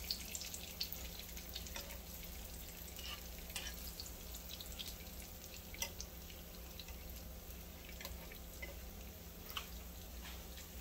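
Tortilla wedges frying in hot oil in a frying pan: a steady soft sizzle with scattered crackles and pops, the sharpest about six seconds in and again near the end.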